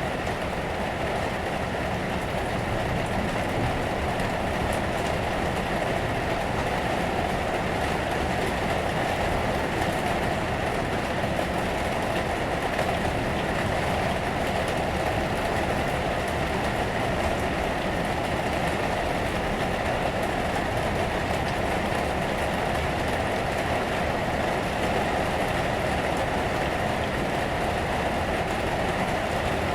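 Steady rain on the roof, heard from inside the attic: an even, unbroken rush with a low rumble beneath it.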